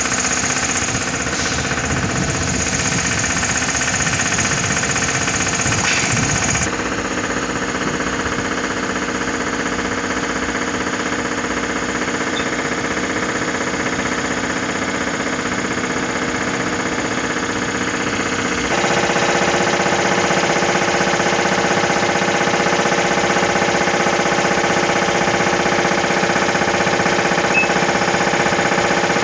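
Machinery running steadily with a fast mechanical rattle, like a diesel engine or air compressor at work. Its tone changes abruptly about seven seconds in and again about nineteen seconds in.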